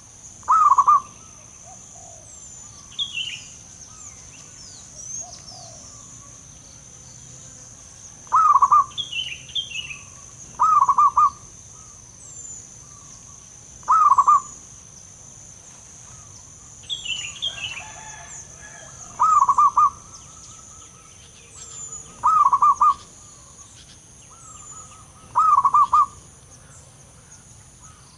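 Zebra dove cooing: seven loud, rolling trilled coo phrases, each under a second long, spaced a few seconds apart.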